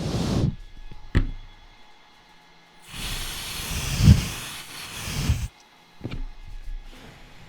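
Butane lighter fuel hissing out of its can onto a circuit board in spray bursts: a short one at the start, a click about a second in, then a longer spray of about two and a half seconds from about three seconds in, and a fainter short one near six seconds. The butane is a cooling agent: the board is frosted so that a shorted, heating component shows itself.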